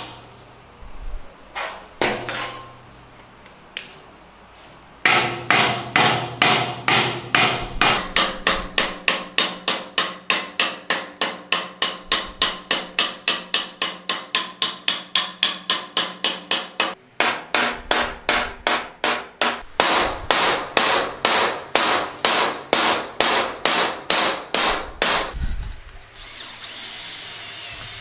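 Steady, rapid hammer blows, about two to three a second, seat the wooden handle in an old axe head clamped in a bench vise. Near the end an electric drill starts up with a steady whine, boring into the end of the wooden handle.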